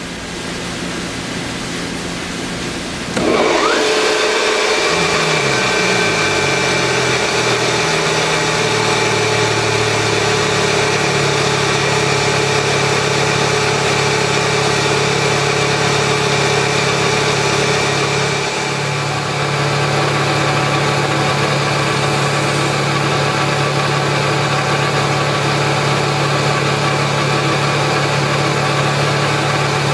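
Atlas Copco GX7FF 10 hp rotary screw air compressor starting up about three seconds in, its hum settling over the next few seconds as it comes up to speed. It then runs steadily, with a shift in its low hum about halfway through.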